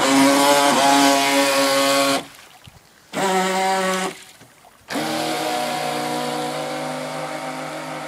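Radio-controlled model boat's motor revving up in three bursts: about two seconds, then a short one, then a longer run from about five seconds in that slowly fades as the boat speeds away across the water.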